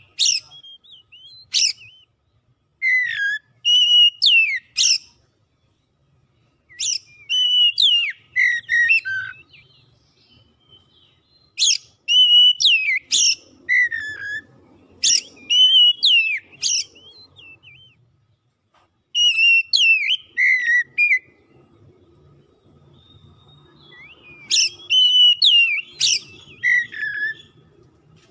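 Oriental magpie-robin singing: phrases of clear whistled notes mixed with quick upward-sweeping notes, given in bouts of a few seconds separated by short pauses.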